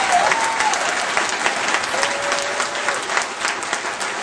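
Audience applauding, with dense, steady clapping.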